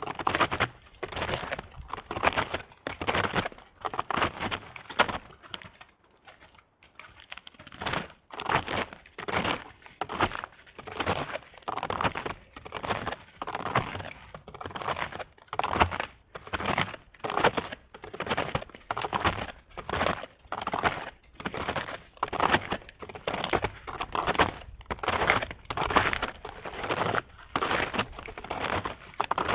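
Snowshoes crunching in snow at a steady walking pace, about one and a half steps a second, with a brief pause about six seconds in.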